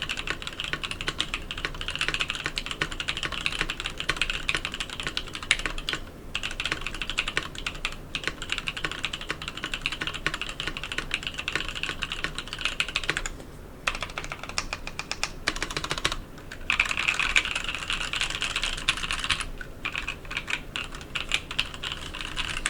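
Fast, continuous typing on a CFTKB Discipline65 65% mechanical keyboard with lubed Novel Keys Cream linear switches, an FR4 plate and EPBT PBT keycaps: rapid key clacks, broken by brief pauses about six, thirteen and sixteen seconds in.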